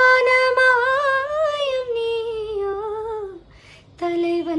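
A woman singing alone without accompaniment, holding one long note that swells up slightly and falls before fading out about three seconds in; after a short breath she starts a new, lower held note near the end.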